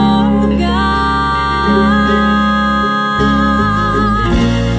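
Background music: a slow piece with long held notes over a steady low bass.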